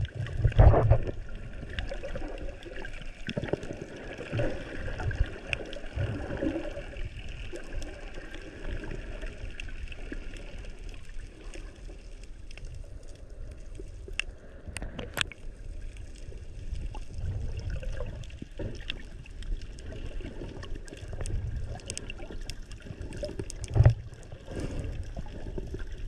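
Muffled water sloshing and gurgling heard underwater through the camera's housing, with scattered small knocks and clicks and a dull thump near the end.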